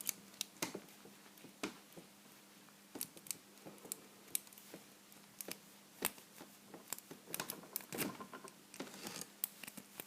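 Homemade worm rake being raked through the pin stack of a vintage Corbin pin tumbler padlock: irregular small metallic clicks and scrapes as the pins are worked, a longer scraping run near the end, over a faint steady hum.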